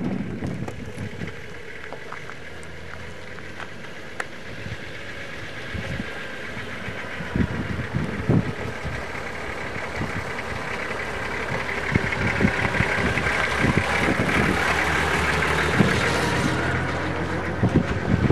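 Wind buffeting the microphone, with irregular low thumps over a steady rushing noise that swells louder in the second half.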